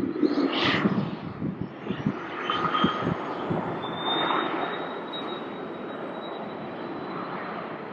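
Cessna CitationJet business jet's twin rear-mounted turbofan engines running as it lines up for takeoff, with a gusty low rumble in the first few seconds. A thin, high turbine whine comes in about halfway and rises slowly in pitch.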